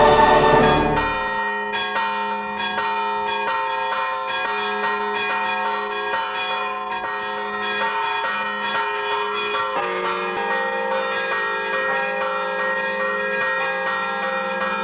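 Church bells ringing a quick, steady run of strokes, about three a second, their tones overlapping as they ring on. A choir's singing stops about a second in.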